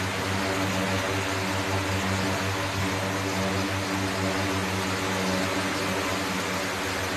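Steady mechanical hum: a low drone with several steady tones over an even hiss, unchanging throughout.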